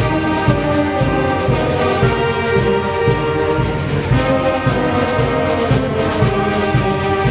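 Live school concert band playing: brass (French horns, trumpets) and woodwinds holding chords together, the notes changing every second or so.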